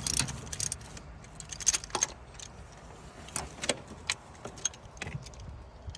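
Scattered metallic clicks and clinks of a socket wrench and extension working a spark plug loose deep in an engine bay.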